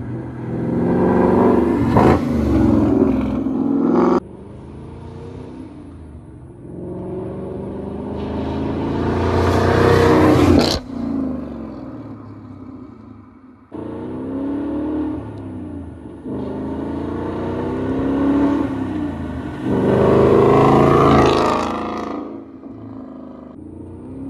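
Ford Mustang GT 5.0 V8 with an MBRP cat-back exhaust making several low-rev drive-bys cut one after another. Each pass swells as the car nears, with the exhaust note shifting in pitch, and some end in an abrupt cut. The loudest passes come about ten seconds in and near the end.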